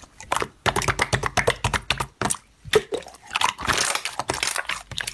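Slime being stretched and squeezed by hand, giving off rapid, irregular sticky pops and crackles, densest a little before the end.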